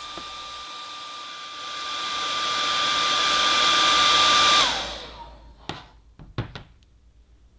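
Handheld hairdryer blowing with a steady whine, growing louder, then switched off about four and a half seconds in, its pitch falling as the motor spins down. A few light knocks follow.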